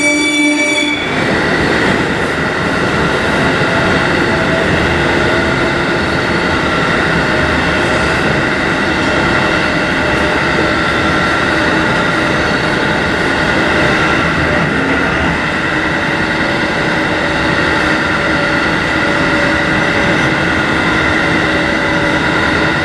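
A JR 711 series electric train running along the line, a steady rumble of wheels and running gear with faint steady tones over it. The train's horn sounds at the start and cuts off about a second in.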